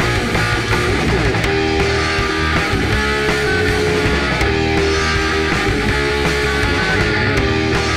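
Background rock music with distorted electric guitar and a steady bass line.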